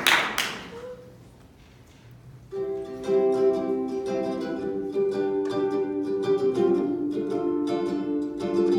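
Applause dies away, then after a short quiet a ukulele starts strumming a song intro about two and a half seconds in, over held chords, with the strums coming more regularly from about five seconds in.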